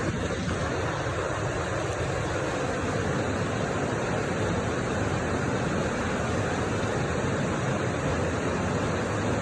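Steady rush of the River Spodden's flowing water.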